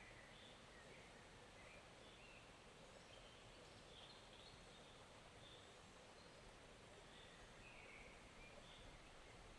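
Faint, steady rush of a forest stream's flowing water, with scattered short, faint bird chirps.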